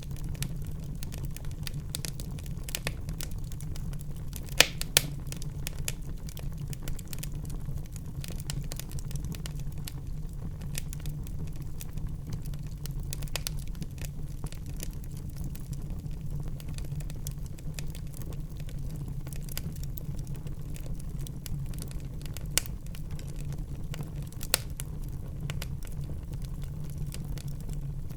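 Wood fire burning in a fireplace: a steady low rumble of the flames with constant small crackles and a few louder sharp pops, the loudest two about five seconds in.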